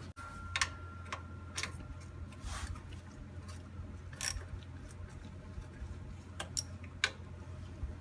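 Scattered sharp metallic clicks of a hand tool working the pan bolts of a Turbo 400 automatic transmission, a dozen or so at irregular spacing over a low steady hum.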